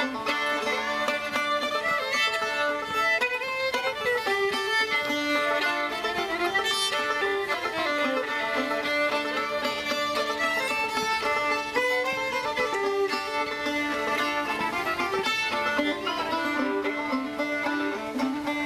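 Banjo and fiddle playing a bluegrass tune together, the fiddle bowing the melody over the banjo's picking.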